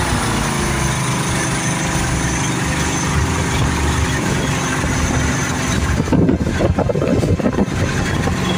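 A 1979 GMC Cobra Jet jet boat's engine and Berkeley jet drive running steadily at speed, with the rush of wake and wind over it. A short, uneven patch of other sound breaks in about six seconds in.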